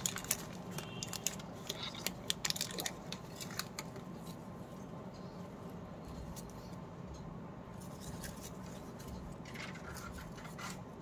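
Clear plastic wrapper crinkling as a small cardboard jigsaw puzzle is pulled out of it, with dense rustles and clicks for the first few seconds. After that come sparser, fainter clicks of the loose cardboard puzzle pieces being handled, a little busier again near the end.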